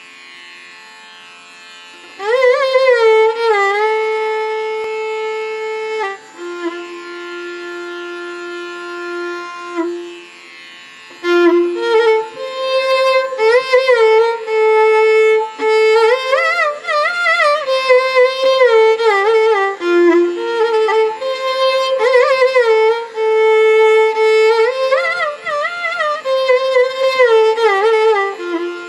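Instrumental background music: a single melody line that slides and bends between notes, coming in strongly about two seconds in after a soft opening.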